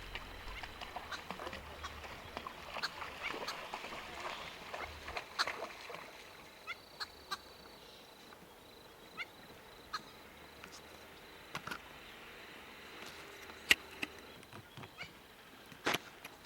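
Birds calling in the bush: scattered short calls and chips, some sharper than others, over a faint outdoor background. A low rumble fades out about five seconds in.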